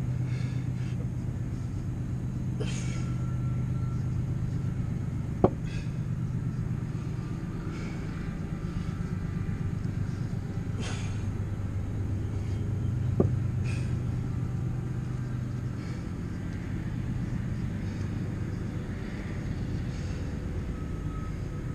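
A steady low hum, with two sharp knocks about five and thirteen seconds in, as a kettlebell is set down on a concrete slab between dead cleans.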